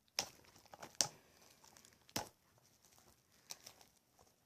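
Plastic wrapping on a new Blu-ray case being picked and pulled at by hand: faint crinkling and scratching with a few sharp clicks.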